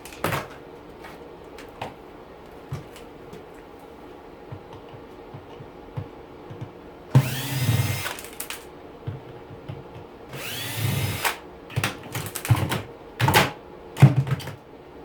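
Power drill/driver spinning up twice in short runs to back out screws, the motor's pitch rising as it speeds up. Scattered knocks and clatter of parts being handled follow near the end.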